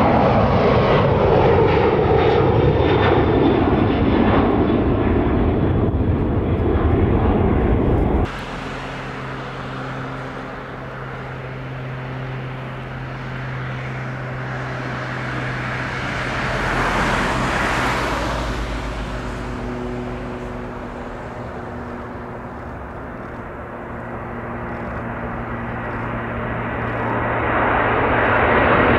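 Jet airliner engines. A loud engine noise falls in pitch and cuts off sharply about eight seconds in. A quieter engine hum with a few steady tones follows; it swells and fades, then grows loud again near the end.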